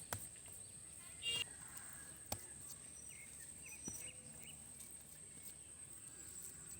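Quiet rural background with a steady high-pitched hum, a few short bird chirps and a couple of light clicks.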